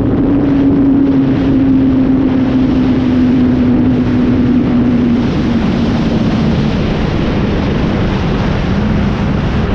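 Motorcycle engine running at road speed under heavy wind noise on the microphone, its note slowly falling as the bike eases off.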